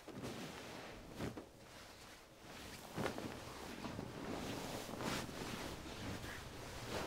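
Bedsheets and a hospital gown rustling as a person turns over and settles into bed. There are a few soft swishes, the strongest about three and five seconds in.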